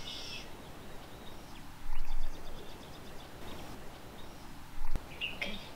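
Outdoor ambience with birds chirping briefly. Two short low bumps, about two seconds in and again near the end, are the loudest sounds.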